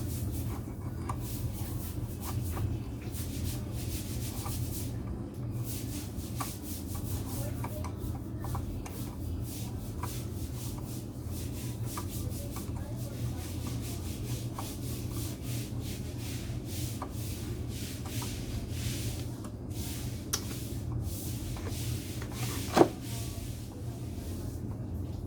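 Hand scraping on a hard part: a long run of short rubbing strokes over a low steady hum, with one sharp click about 23 seconds in.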